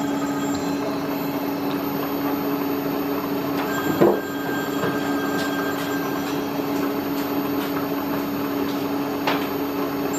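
Milling machine running with a four-flute carbide end mill cutting dry and very slowly into a hard broken stud: a steady hum, with a sharp scrape about four seconds in and a smaller click near the end.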